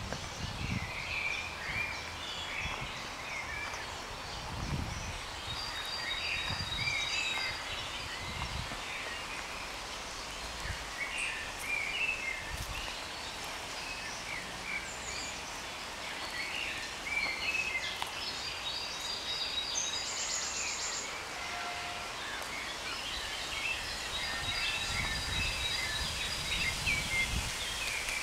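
Several songbirds chirping and singing in woodland, short calls and a few higher trills scattered throughout. Occasional low rumbling on the microphone, strongest near the start and toward the end.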